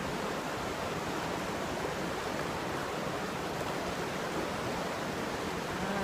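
McCloud River white-water rapids rushing over rocks: a steady, unbroken rush of water.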